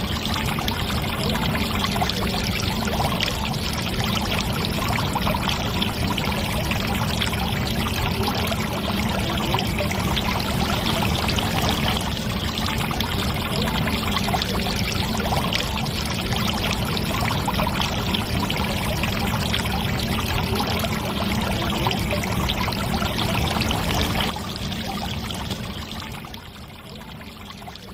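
Water pouring steadily from a toy tanker trailer's outlet pipe and splashing onto sand. Near the end the flow thins to a dribble and the sound fades away.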